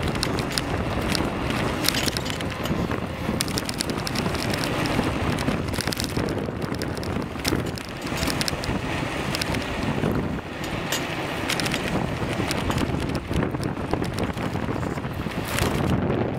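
Wind buffeting the microphone of a bicycle riding fast downhill, with many short clicks and rattles mixed in.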